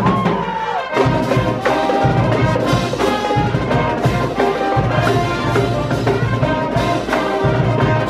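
A marching band's brass section, with trombones, saxophones and sousaphones, playing a loud tune to a steady beat at close range.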